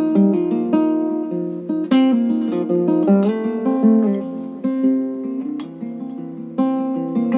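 Background music: acoustic guitar picking a melody with chords.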